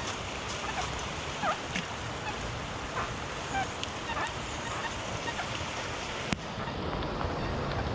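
Steady hiss of rain and wind on the microphone, with birds calling throughout in short falling notes and a single sharp click about six seconds in.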